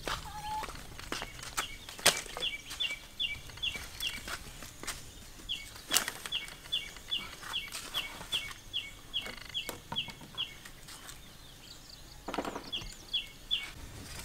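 A bird calling three runs of short, high chirps, each falling in pitch, about three a second, with scattered sharp knocks and clatters from things being handled.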